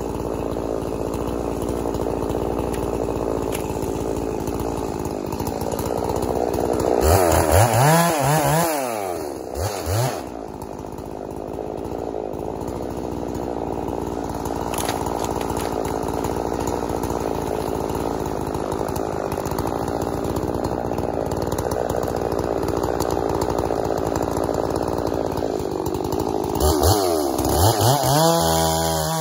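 Gas-powered two-stroke chainsaw running steadily while bucking a log into firewood blocks. Its engine revs up and down about a quarter of the way in, and revs up again near the end as the next cut begins.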